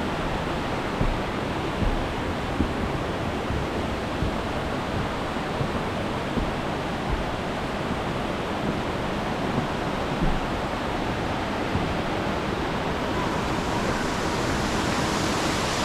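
Mountain stream cascading through a narrow rock gorge: a steady roar of rushing water, growing brighter and a little louder near the end. Faint thumps come about once a second.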